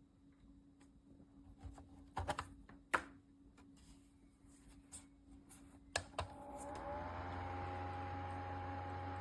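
Handling clicks and taps on small plastic parts, then a sharp click about six seconds in as the mini USB clip fan is switched on. Its motor spins up, rising in pitch over about a second, and settles into a steady whir with the hiss of moving air.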